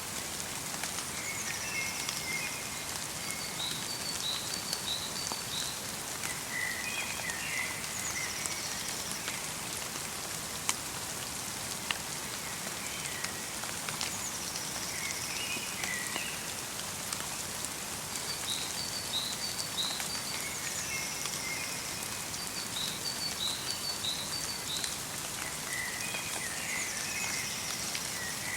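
Light rain falling steadily in a forest, with a few sharp drops. Small songbirds call every few seconds, with short chirps and quick runs of high notes.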